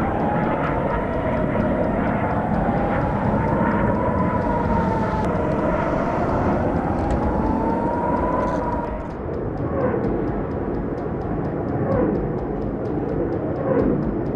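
A siren wailing, its pitch rising and falling slowly in long sweeps, over a steady rumble. The wail stops about nine seconds in.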